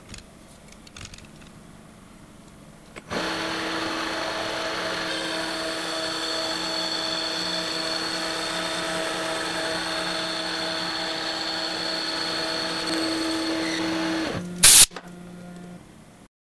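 Metal lathe turning a hammer handle: after a few faint clicks, the lathe starts about three seconds in and runs steadily with a steady whine while the turning tool cuts along the bar. It stops near the end, followed by one loud, sharp clunk.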